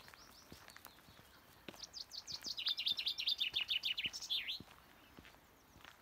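A songbird sings one phrase of about three seconds starting about two seconds in: a quick run of descending notes that ends in a short flourish. Light footsteps crunch on a gravel path underneath.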